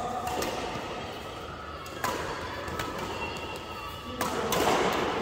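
Badminton rally: racket strings striking the shuttlecock in sharp hits, about two seconds apart, over background voices in a large hall. A louder burst of noise comes about four seconds in.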